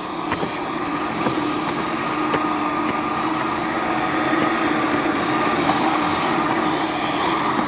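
Small electric motor and gears of a radio-controlled snow vehicle whining steadily at a near-constant pitch, with a few faint clicks.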